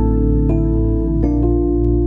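Background music: soft, slow mallet-like notes ringing over a sustained low bass.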